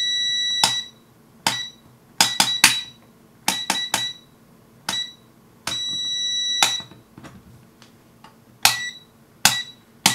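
Tekpower TP40 digital multimeter on the mains: its beeper sounds a steady high tone until about half a second in. Then comes a series of short beeps and clicks, about a dozen, as its rotary range selector is stepped through the ranges, with a second steady beep lasting about a second near the middle.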